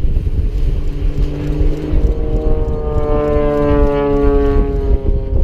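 A passing engine hum whose pitch falls slowly as it goes by, building from about a second and a half in, heard over wind rumble on the microphone.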